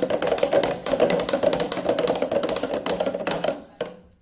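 Homemade soapy liquid being stirred in its container: a rapid, continuous clattering that stops near the end.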